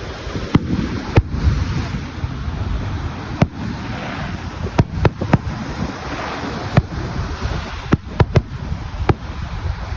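Fireworks going off: about a dozen sharp bangs at irregular intervals over a steady low rumble.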